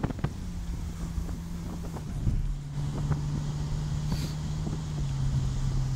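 Ferrari California's V8 engine running at a steady cruise, heard from inside the open-top cabin with wind rushing past. The engine note steps down slightly in pitch twice.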